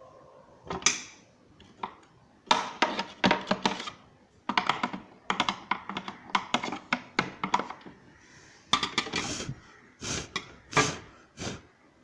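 Rapid clicks and clatter of small plastic and metal parts being handled on an opened-up mixer, coming in irregular clusters as the parts are worked and the loose wire connection is pushed back together.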